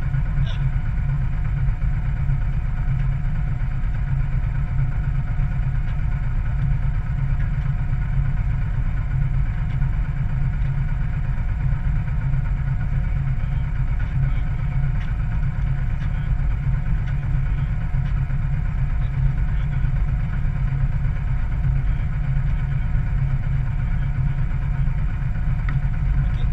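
Boat engine running steadily at a constant low speed, a deep even drum with a hum above it.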